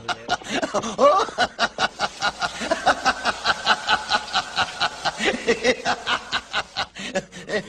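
A cartoon character laughing in a long run of rapid, evenly spaced chuckles.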